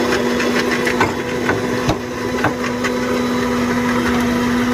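Small electric mixer-grinder running with a steady hum. Sharp knocks and clinks at the counter come about every half second through the first three seconds.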